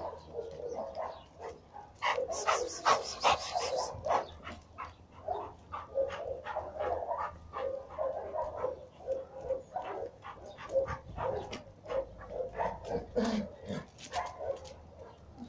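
Dog barking in short, quick barks, about three a second, loudest from about two to four seconds in.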